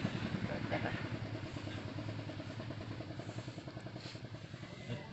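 Kitten purring while being stroked: a steady low rhythmic rumble that slowly fades.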